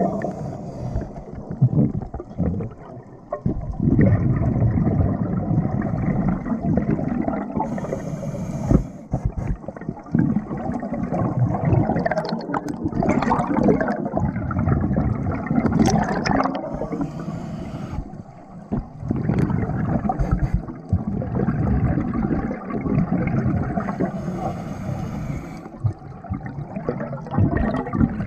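Scuba divers' regulator breathing and exhaled bubbles, heard muffled through a camera's underwater housing: a continuous bubbling, gurgling rumble with a brief hiss about every eight seconds.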